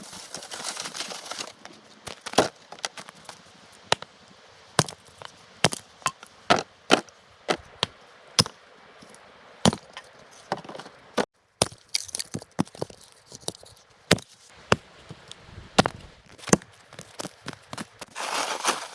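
Wood being chopped for firewood: a long run of sharp, irregular knocks, roughly one or two a second.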